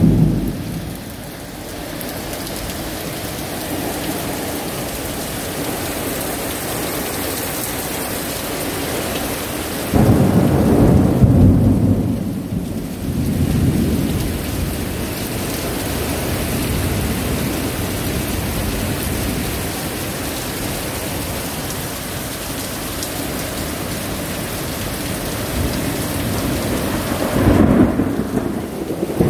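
Heavy rain falling steadily, with thunder: a loud thunderclap about a third of the way in that rolls on for several seconds, and another rumble of thunder near the end.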